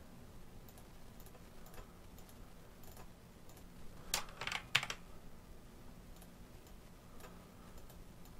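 Scattered computer keyboard clicks, with a short run of louder keystrokes about four seconds in, over a faint steady low hum.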